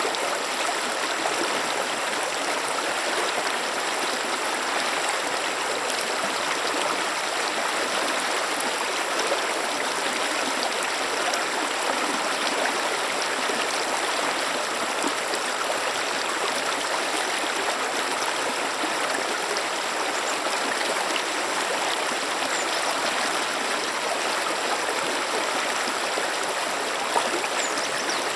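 A stream flowing, a steady rushing of water with no change throughout.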